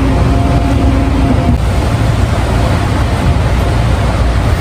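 Commuter train running, heard from inside the passenger car: a loud, steady low rumble with a faint hum riding on it.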